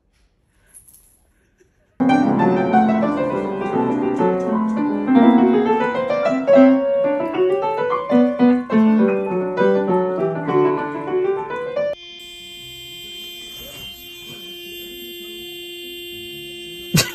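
After about two seconds of near silence, a piano plays many quick notes for about ten seconds, then cuts off suddenly. A quieter chord of steady held tones follows.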